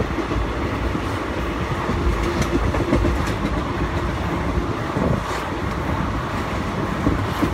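Steady rumbling running noise with a faint steady tone and a light, scattered clatter.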